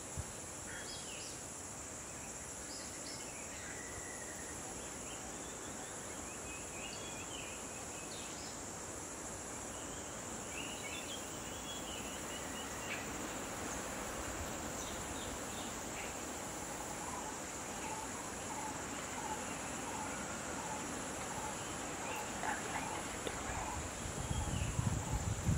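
Steady high-pitched insect chorus, like crickets, with scattered short bird chirps in the first half. A low rumbling noise comes up near the end.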